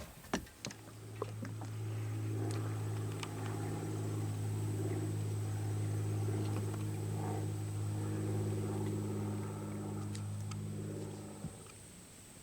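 A motor running steadily with a low, even hum, starting about a second in and cutting off near the end, with a few light clicks over it.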